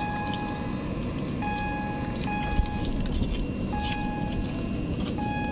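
PESA Elf electric multiple unit at the platform with a steady low hum, while short electronic beeps of one steady pitch sound several times at uneven intervals. A couple of dull thumps come about halfway through.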